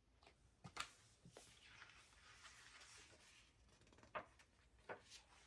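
Faint paper handling in a small room: a few soft clicks and a quiet rustle as a page of a picture book is turned.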